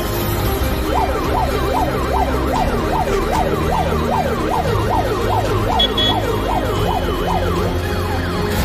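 Vehicle siren wailing in fast yelps, rising and falling about two to three times a second; it starts about a second in and stops near the end.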